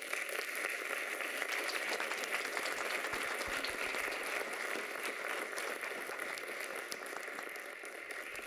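Audience applauding, a dense even clatter of many hands clapping that slowly fades toward the end.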